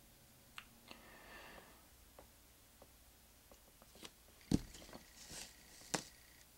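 Quiet handling noises from a hand moving about on a wooden tabletop: a few faint clicks and a soft rustle, then a sharp knock about four and a half seconds in and a lighter one about a second and a half later.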